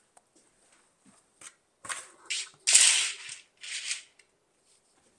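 A handful of short clattering, rustling noises from decorative items being moved and set down on a pile, the loudest about three seconds in.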